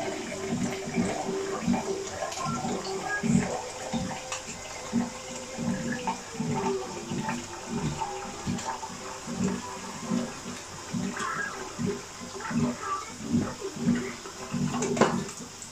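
Pot of tinola chicken broth bubbling under a glass lid on a gas burner, with a steady run of irregular low blips.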